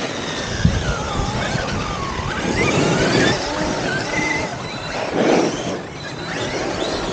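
Electric RC monster trucks driving through snow: their motors whine up and down in pitch as they accelerate and ease off, over a steady rushing noise, with a louder surge about five seconds in.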